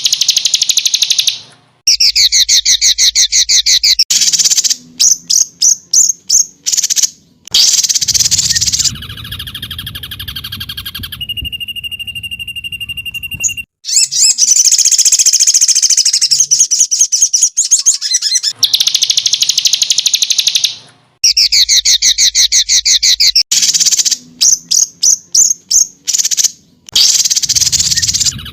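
Songbird masteran: an edited recording of songbird song made of fast, rattling high trills and rapid chirp series, joined with abrupt cuts, with a brief steady whistle-like tone about halfway through. The same phrases come round again as the recording loops.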